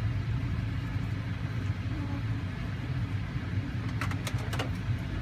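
Steady low machine hum, like a running vehicle engine, inside a van. A few light metallic clicks about four seconds in as metal dental hand instruments are handled.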